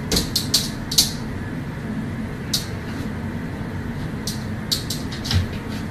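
A cat's claws ticking and scratching against the mirror glass as it swats at its reflection: a quick run of sharp taps in the first second, a single one about two and a half seconds in, and another run near the end, over a steady low room hum.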